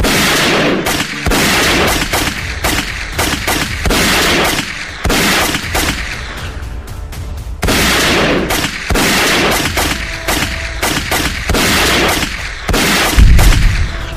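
Battle sound effects of gunfire: rapid bursts and single shots, one after another, with a loud explosion boom near the end.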